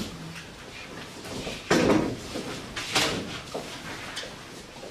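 Classroom bustle of students shuffling about, with a sudden loud thump about a second and a half in and a sharp clack about three seconds in.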